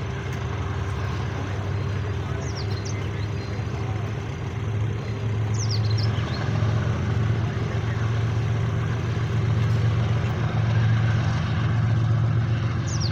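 Pakistan Railways GEU40 diesel-electric locomotive's engine running as it hauls a loaded coal train closer, a low steady hum that grows slowly louder. A few short high chirps sound over it.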